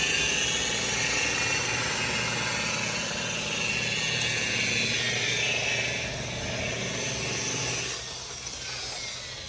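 Electric rotary buffer with a cutting pad running steadily against clear coat, compounding the paint after wet sanding. Its sound drops away about eight seconds in.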